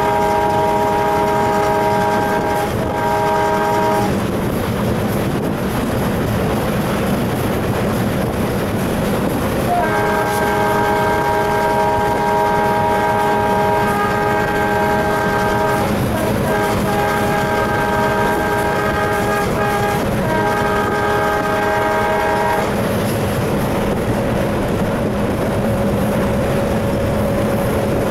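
Alco WDM3D diesel locomotive running at speed, its engine and wheels on the rails heard from inside the cab, with the locomotive's multi-tone horn sounding: a blast at the start with a short break, then a long series of blasts from about ten seconds in to about twenty-two seconds in, broken twice briefly.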